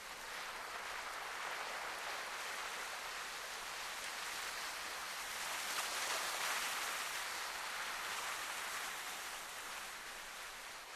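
Sea surf washing against a rocky shore: a steady hiss of water that swells to a peak about halfway through and then ebbs away.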